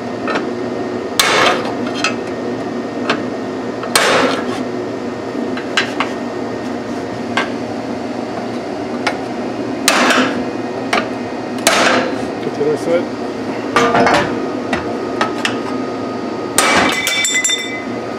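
Hammer blows on a steel bar set in a GM control arm's bushing bore, beating the old bushing shell out. About six heavy strikes a few seconds apart, with lighter taps between; the last one rings.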